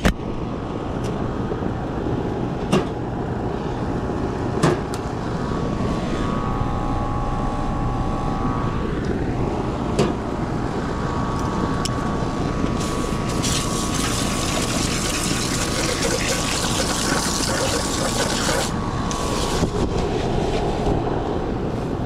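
Garden-hose spray nozzle hissing as water is sprayed onto an air conditioner condenser coil, for about six seconds midway, over a steady low mechanical hum with a few sharp clicks.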